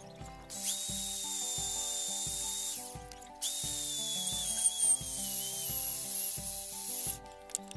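Corded electric drill with a hole saw cutting into a wooden plank, run in two spells of about two and a half and nearly four seconds with a short stop between; its whine dips slightly in pitch during the second spell.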